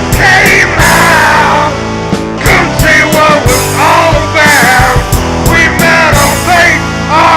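Rock song playing: drums keeping a steady beat under guitar and a bending lead melody line.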